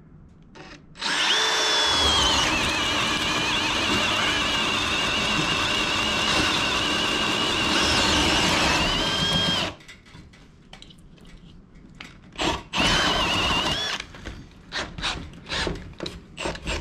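Milwaukee M18 FPD2 cordless drill boring a large Forstner bit into 2-inch-thick Sitka spruce. The motor whine spins up about a second in, holds under load for about eight seconds and winds down. A short second burst of drilling follows, then a string of sharp knocks.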